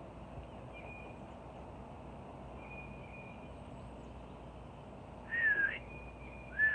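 A person whistling two breathy notes near the end, a short one and then a longer held one that carries on. The whistle comes out weak: she can't whistle today.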